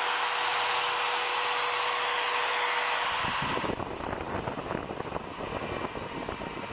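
Electric drill motor running steadily in a homemade drill press, a high whine with a steady tone. About halfway through, the whine gives way to a rougher, lower crackling sound.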